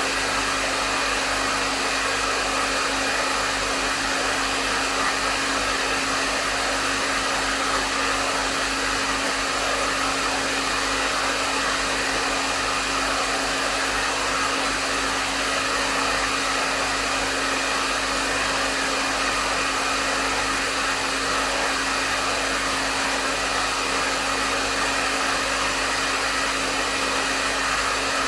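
Hair dryer running steadily, a constant rush of blown air with a steady motor hum underneath and no changes.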